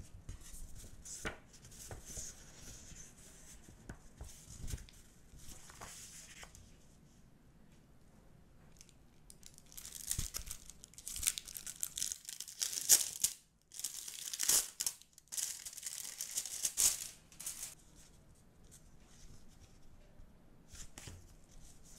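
Paper envelopes and sheets rustling in gloved hands, then from about ten seconds in several loud bursts of packaging being torn and crinkled, quieter handling near the end.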